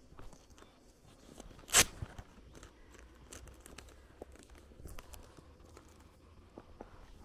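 Footsteps of someone walking on grassy ground, with small crunches and clicks, and one sharp crack a little under two seconds in that is the loudest sound.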